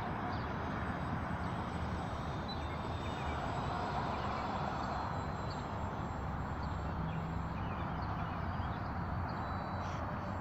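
Jet airliner passing overhead on its landing approach: a steady engine rush that swells a few seconds in, then eases off.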